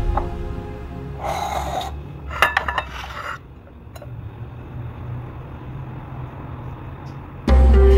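Hands coating a chicken drumstick in glass bowls of egg and bread crumbs: a short rustle, then a quick run of small clinks against the glass about two and a half seconds in. Background music starts abruptly near the end.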